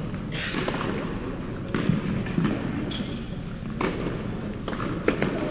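Scattered knocks and thuds echoing through a large indoor tennis hall, a few irregular sharp hits over a few seconds: tennis balls being struck and bouncing on the courts.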